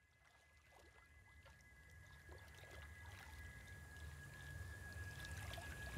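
Faint soundtrack ambience fading in: a steady high whine, scattered small ticks and crackles, and a low rumble that grows louder.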